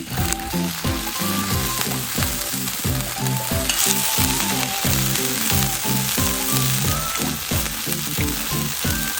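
Food sizzling and frying on a hot iron griddle plate, a steady hiss, under background music with a steady beat.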